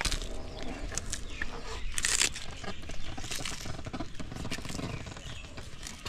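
Leafy branch rustling and crackling in irregular bursts as an Aldabra giant tortoise tugs at it and chews it. The loudest rustle comes about two seconds in.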